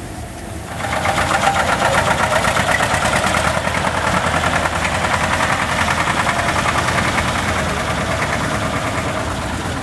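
Small vintage tractor engine running with a rapid, even clatter as the tractor drives, starting about a second in.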